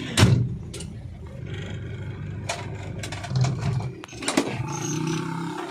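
Diesel engine of a FAW truck tractor head running at idle, with a loud sharp knock near the start and a few lighter clicks.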